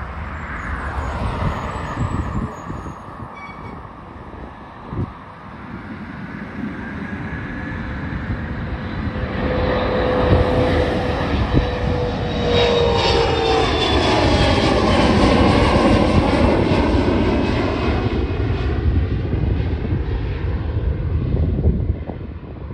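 Twin General Electric CF34-8C turbofans of a CRJ-700ER regional jet at takeoff power as it climbs out past overhead: a steady jet roar with a whine that falls in pitch as it goes by. The roar is loudest about two-thirds through and fades near the end.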